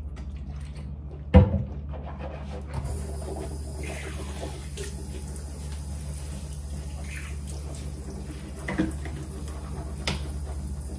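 Listerine mouthwash being swished around in the mouth, a steady wet hiss that begins a few seconds in, over a steady low hum, with a sharp knock about a second and a half in.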